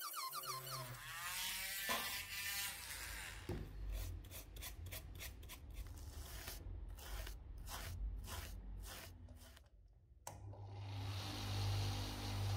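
A handheld rotary engraving tool whines with a shifting pitch as it cuts letters into a black acetate sunglasses temple. Then a toothbrush scrubs across the frame in quick strokes, about two a second. About ten seconds in, a bench polishing machine with a cloth buffing wheel starts suddenly and runs with a steady hum.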